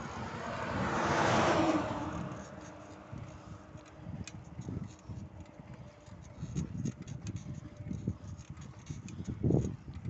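A box truck passing the opposite way, its engine and tyre noise swelling to a peak about a second and a half in, then fading away. After it, wind buffets the microphone in low gusts, with a heavier gust near the end.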